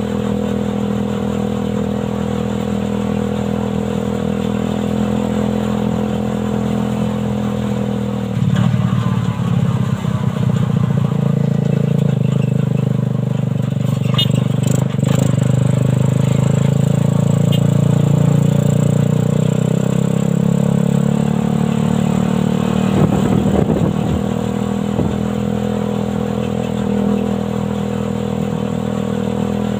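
Suzuki Satria FU 150cc single-cylinder four-stroke motorcycle engine running in a homemade buggy. It runs at a steady note, then about eight seconds in grows louder with its pitch dipping and slowly climbing under load, and settles back to the steady note after about twenty-two seconds.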